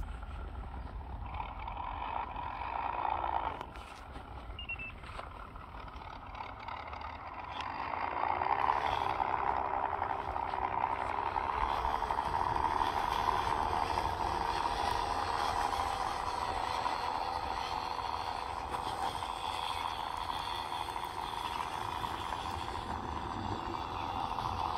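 1/10-scale RC Willys jeep running across grass with a steady humming whine. It is quieter for a few seconds, then louder and even from about eight seconds in.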